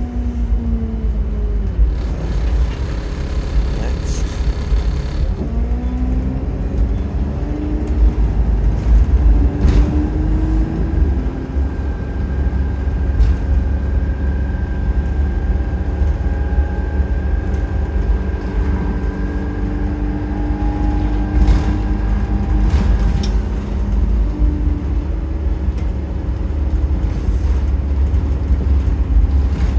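Cabin sound of an Optare Solo SR single-deck bus on the move: the engine's note falls and then rises several times as the bus slows, pulls away and goes up through the gears, over a steady low road rumble. A steady high whine runs through the middle stretch.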